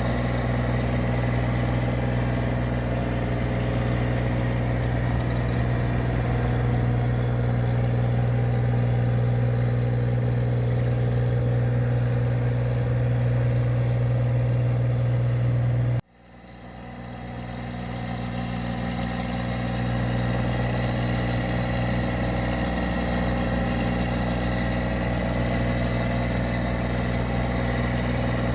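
Engine of a paddy (rice) machine running steadily at constant speed, a continuous low drone with a strong hum. About halfway through the sound cuts out abruptly and then swells back to full level over a few seconds.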